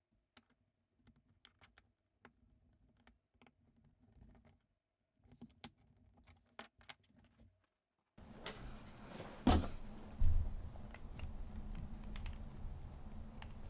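Small clicks and taps of a metal palette knife prying at the seam of a plastic alcohol marker's barrel, working the tip section loose. They are faint at first and louder from about eight seconds in, with a sharp click and a dull knock a little after that.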